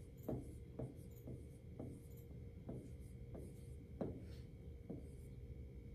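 Pen writing numbers on a whiteboard screen: a run of short faint taps and scratches of the tip, about two a second, with one louder tap about four seconds in.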